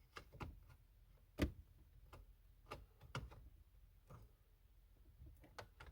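Faint, scattered clicks and taps of brittle plastic dash pad retaining clips being pried at with a pick, with one sharper click about a second and a half in.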